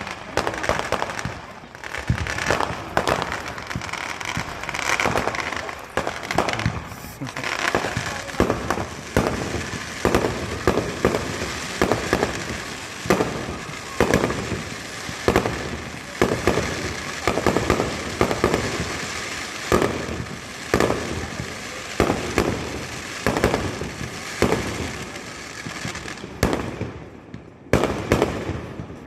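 Aerial fireworks going off in a dense, continuous barrage: many sharp bangs in quick succession over a steady crackle, with a brief lull near the end.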